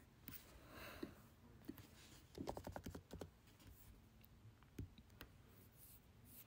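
Faint computer keyboard typing and clicks: a quick run of keystrokes about two and a half seconds in, with a few single clicks before and after.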